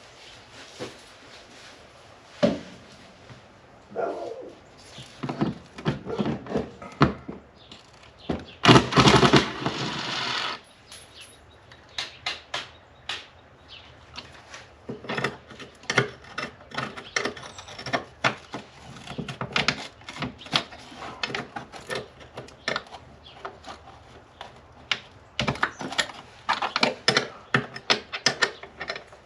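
Hand tools on car bolts: a socket wrench ratcheting in runs of quick clicks, with scattered knocks and clanks of metal, and one loud rasping noise lasting about two seconds some nine seconds in.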